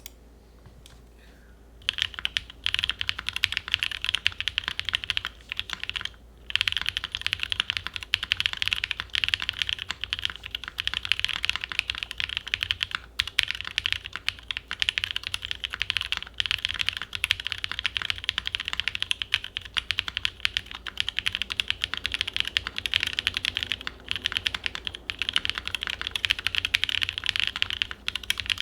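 Fast, continuous typing on a Gok 7V custom mechanical keyboard with lubed linear switches (Original Aspiration housings fitted with NovelKeys Cream stems), a polycarbonate plate and GMK keycaps. The typing starts about two seconds in and breaks off briefly about six seconds in. The board keeps a touch of hollowness despite its foam.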